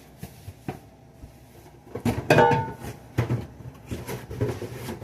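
Handling knocks and clatter from the plastic single-serve coffee maker and its parts: a couple of light clicks, then about two seconds in a louder scrape followed by several knocks.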